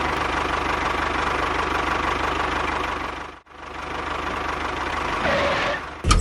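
A small engine running steadily with a rapid low knock. It breaks off sharply for a moment about three and a half seconds in, then runs on.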